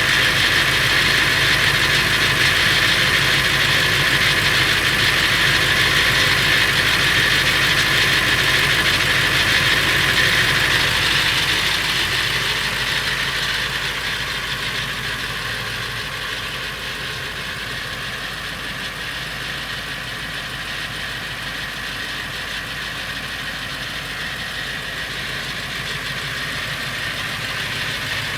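Ford 7.3L Powerstroke V8 turbodiesel idling with a rattle, which the owner cannot place and suspects may be the flexplate or the engine itself. The sound gets noticeably quieter about halfway through.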